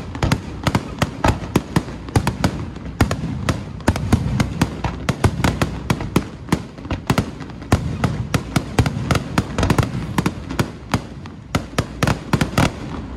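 Fireworks and firecrackers going off: a dense, irregular run of sharp bangs, several a second, over a continuous low rumble, stopping shortly before the end.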